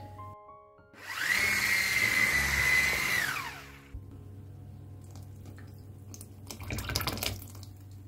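Electric hand mixer spinning up, running at a steady high whine for about two seconds while beating sifted flour into whipped egg batter, then winding down. Soft background music plays throughout, and there is a brief noisy rustle near the end.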